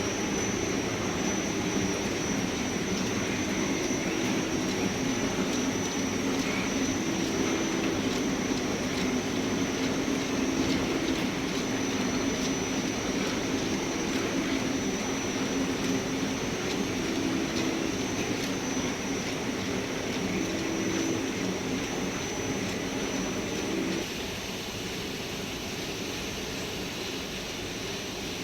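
Fried instant noodle production line machinery running steadily, with a constant high whine over a broad mechanical hum and low tones that come and go. The sound drops to a quieter hiss about three quarters of the way through.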